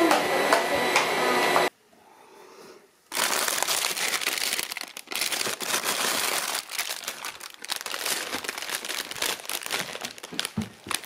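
A steady whirring noise that cuts off suddenly under two seconds in; after a short pause, plastic packaging crinkles and rustles as bagged items are rummaged through in a freezer drawer and wrapped ice lollies are handled.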